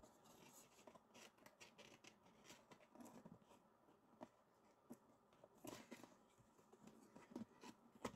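Near silence, with faint scattered small clicks and rustles of something being handled.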